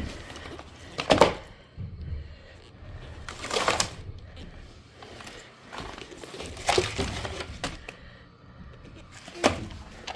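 Plaster cornice and plasterboard pieces being handled and broken away: four sharp knocks and cracks, two to three seconds apart, with no power tool running.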